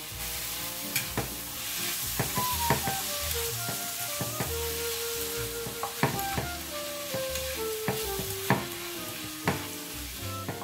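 Sliced pak choy, onion and bacon sizzling in a frying pan while chopsticks stir them, knocking against the pan in scattered sharp clicks.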